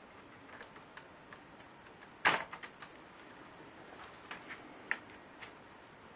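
Small hard parts and tools clicking and clacking as a laptop is worked on by hand: one sharp clack about two seconds in with a few quick lighter clicks after it, then a few scattered light clicks near the end.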